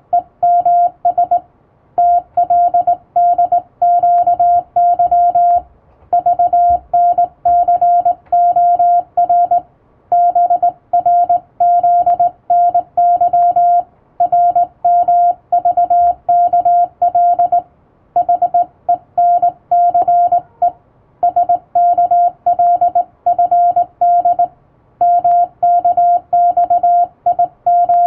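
Hand-keyed Morse code: a steady tone of about 700 Hz switched on and off in quick dots and dashes, sending English-alphabet telegram text on a telegraph key. Short pauses every few seconds separate the groups.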